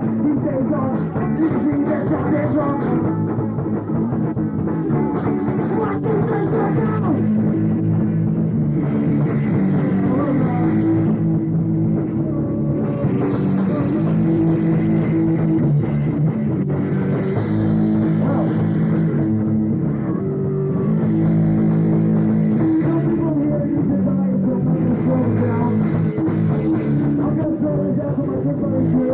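Live rock band playing a song, loud and steady.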